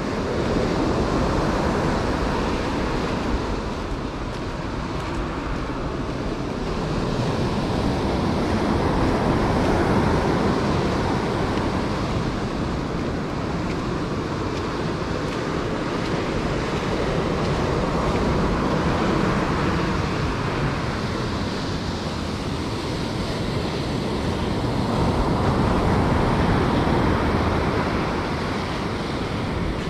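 Ocean surf breaking on a sandy beach: a steady rushing wash that swells and eases every several seconds as waves come in.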